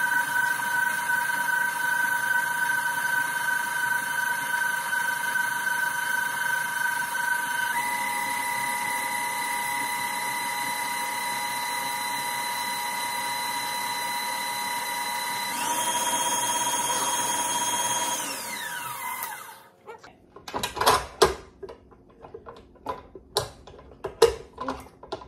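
Electric stand mixer with a paddle attachment creaming peanut butter and butter: a steady motor whine that steps up in pitch twice, then winds down with a falling whine as it is switched off about three quarters of the way in. After it stops come a series of sharp clicks and knocks as the bowl and paddle are handled.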